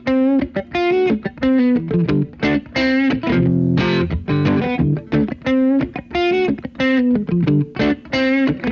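Electric guitar playing alone: a choppy, rhythmic riff of short chords and notes with brief gaps between them.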